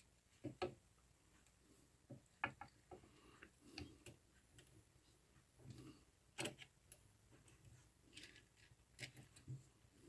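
Faint, scattered clicks and taps of a plastic 3D-printer fan shroud being handled and pressed onto the printhead, at irregular moments, the sharpest click about six seconds in.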